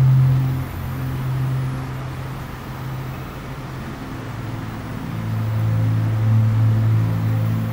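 Ambient background music of low, sustained drone notes that shift to a lower pitch about four to five seconds in.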